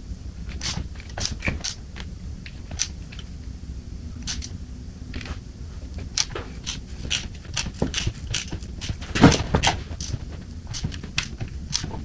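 Bare bottom end of a 2007 Honda CBR1000 inline-four, head removed, turned over slowly by hand with a wrench on the crank: irregular clicks and clunks of the wrench, cam chain and pistons, with a louder knock about nine seconds in, over a low steady hum. The mechanic takes the clunking for a piston jumping, a sign of a problem with that cylinder's connecting rod bearing.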